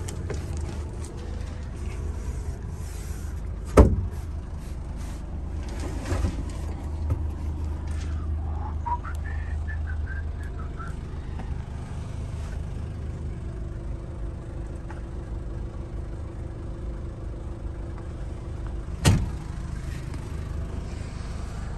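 Knocks and thumps of someone moving about inside a camper van's pop-up roof tent and climbing down into the cabin, with two loud thumps, one about four seconds in and one near the end, and smaller clicks between, over a steady low hum.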